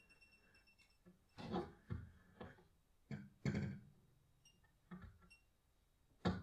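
Sparse, irregular knocks and clicks played on the bodies and strings of a violin, cello and double bass, amplified through piezoelectric contact microphones: about seven sharp strikes with short ringing tails, the loudest near the middle and at the very end. Faint steady high tones die away in the first second.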